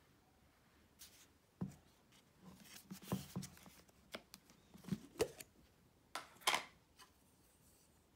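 Handling of a plastic yogurt tub and its lid: a few light clicks and knocks, with short crinkly rustles, the loudest a little past the middle as the lid is pulled off.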